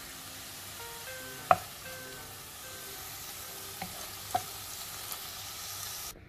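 Sweet potato leaves with garlic and chilli sizzling as they are stir-fried in a nonstick pan, with a wooden spatula knocking against the pan a few times; the loudest knock comes about a second and a half in. The sizzling cuts off suddenly just before the end.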